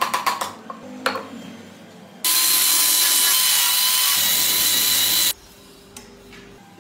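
A few sharp knocks of wood on wood in the first second. Then an angle grinder fitted with a sanding drum runs for about three seconds, a steady whine over a rushing noise as it sands a wooden car body, and cuts off suddenly.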